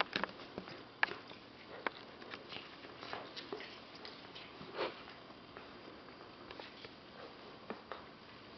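Alaskan Malamute puppy chewing and mouthing a plush toy, giving irregular soft clicks and small gnawing noises, a few of them sharper.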